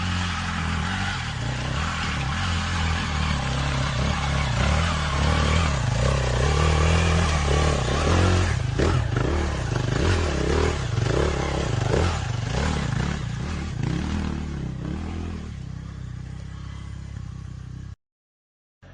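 Dirt bike engine running and revving, its pitch rising and falling as the throttle is worked, then dying down toward the end. The sound cuts off abruptly near the end.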